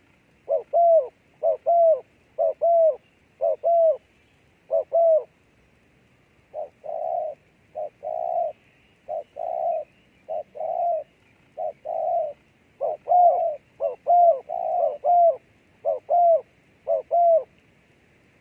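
A dove cooing loudly in a long series of short coos, mostly in quick pairs, each note hooking up and down in pitch, with a brief gap about five seconds in; a faint steady high hiss runs underneath.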